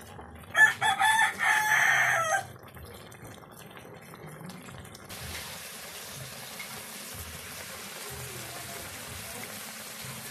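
A rooster crows once, about half a second in, a loud call of about two seconds. From about five seconds in, a steady hiss of broth boiling hard in a wok with pieces of snakehead fish.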